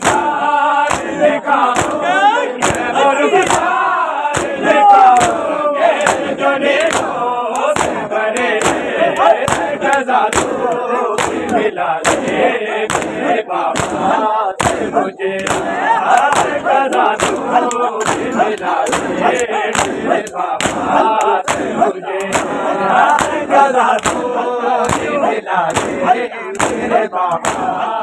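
Crowd of men chanting and shouting in chorus over a steady beat of open-hand slaps on bare chests: matam, ritual chest-beating of mourning.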